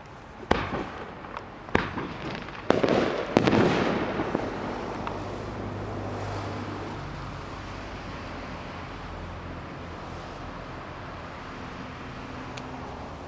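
Fireworks going off: four sharp bangs in the first three and a half seconds, the last two followed by a crackling spray that fades over about a second, then a steady low hum.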